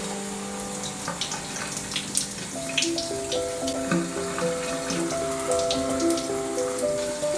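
Shower spray running and spattering on tile, with background music of held, changing notes playing over it.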